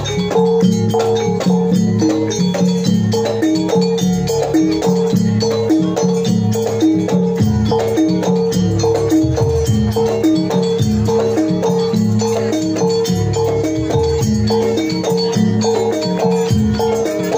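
Live jaranan gamelan music: a fast, repeating melody on bronze keyed and gong instruments over drums, with a steady held note. A small hand-held brass gong is struck in time with the beat.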